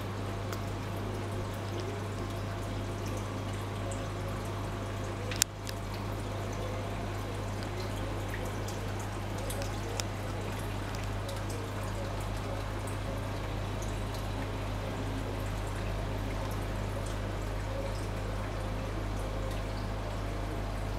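Reef aquarium water trickling and splashing steadily as it circulates, over a steady low hum. A sharp click about five seconds in and a smaller one near the middle.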